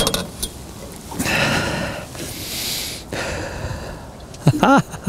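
A man breathing out heavily and sniffing, then a short wordless voiced sound near the end. A couple of clicks at the start.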